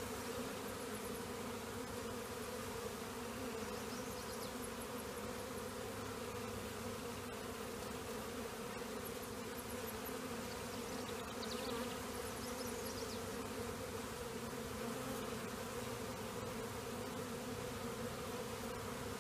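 A swarm of honeybees buzzing in a steady, continuous hum as they cluster on a hive box and walk inside. A few faint, high, short chirps come through now and then.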